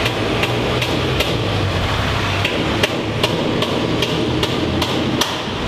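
Construction workers hammering: loud, evenly spaced hammer blows, about two and a half a second, over a steady low hum.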